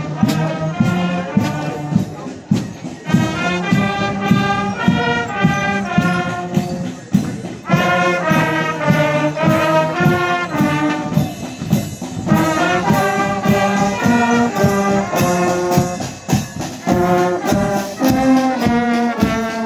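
Marching brass band playing a march as it passes: tubas, trumpets and other horns in chords over a steady beat of bass drum and cymbals.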